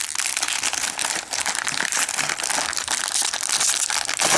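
Plastic parts bag of a model kit crinkling and crackling as it is handled, a dense run of small crackles.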